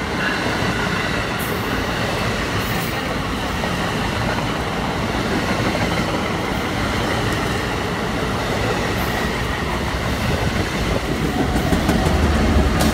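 NJ Transit MultiLevel double-decker coaches rolling past with steady wheel-on-rail noise and a few faint clicks. Near the end the rear ALP-46A electric locomotive that is pushing the train goes by, and a deeper, louder rumble comes in.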